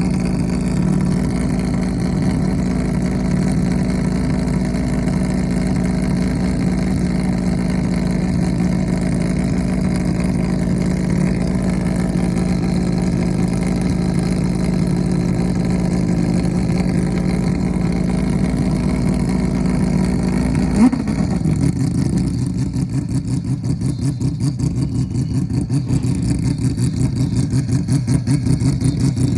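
Mazda 767B's four-rotor rotary engine running at a steady raised idle. About two-thirds of the way through there is a sharp pop, the revs drop, and the engine settles into a lumpy, pulsing idle that slowly climbs near the end.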